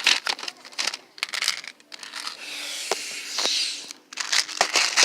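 Rustling and scraping with scattered sharp clicks and knocks, and a longer hissing rustle from about two and a half seconds in that lasts over a second.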